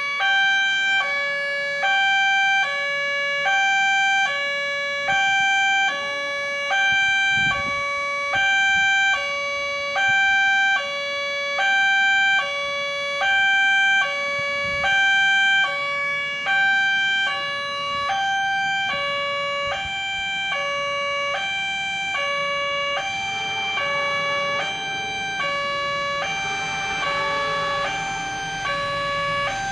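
Railway level-crossing warning siren sounding a harsh, hoarse two-tone alarm, switching steadily between a high and a low note about every 0.7 seconds. Over the last few seconds a rising rushing noise grows in underneath it.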